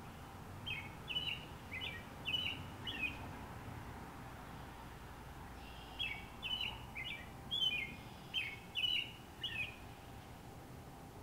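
American robin singing two phrases of short, clear whistled notes, about five notes in the first and about eight in the second, a few seconds apart, over a steady low background rumble.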